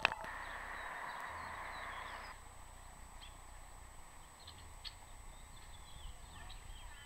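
A click, then a steady hiss that cuts off about two and a half seconds in, giving way to quiet pond-side ambience with faint, scattered chirps of small birds.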